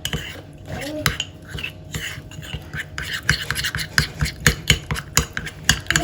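A spoon clicking and scraping against a small bowl in quick, irregular strokes as a thick paste of cooked garlic, honey and olive oil is stirred.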